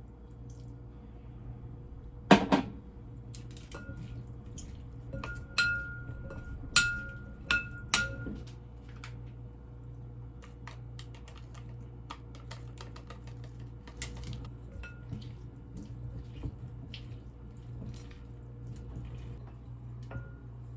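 Dishes and utensils clinking and knocking in a kitchen. A sharp knock comes about two seconds in, then several ringing clinks between about four and eight seconds, then lighter taps, over a steady low hum.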